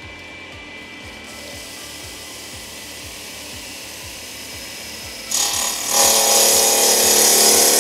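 Raimondi Pikus 130 tile wet saw running with its diamond blade spinning freely; about five seconds in, the blade bites into a block of soft sandstone and a much louder steady grinding takes over. The abrasive sandstone is wearing back the blade's metal matrix, dressing it to expose fresh diamonds.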